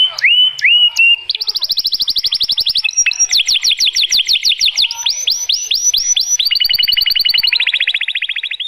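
Domestic canary singing: a few swooping whistles open into long, fast trills of rapidly repeated notes, some rolls of steady notes and some of quick downward sweeps, switching from one pattern to the next every second or two.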